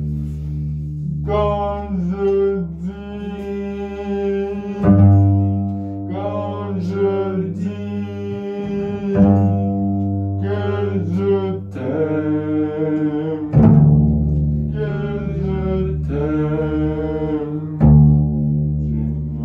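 Double bass bowed in long, low held notes, a new note struck about every four seconds. A voice sings a wavering melody above them.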